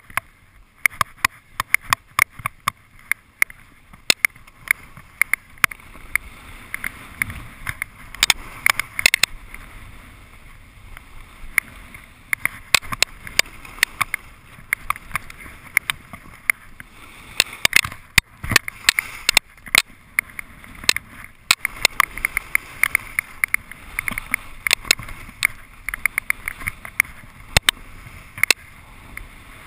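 Skis running downhill through snow, heard muffled through an action camera's housing: a steady rushing hiss with many sharp, irregular clicks and knocks throughout.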